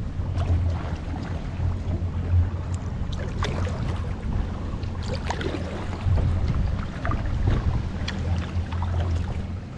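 Kayak paddle dipping in and out of the water, with scattered small splashes, drips and light knocks over a steady low rumble.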